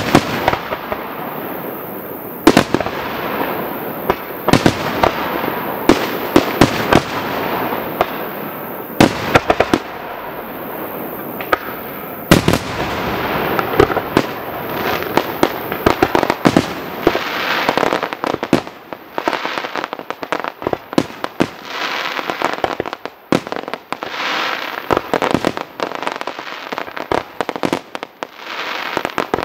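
Aerial firework shells bursting in quick succession: sharp bangs over a continuous crackle, with the loud reports coming as more separate, frequent bangs in the second half.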